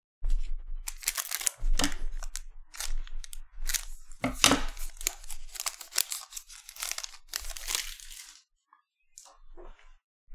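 A trading card pack wrapper crackling and tearing as it is ripped open and crumpled, for about eight seconds. Then a few faint clicks as the cards are handled.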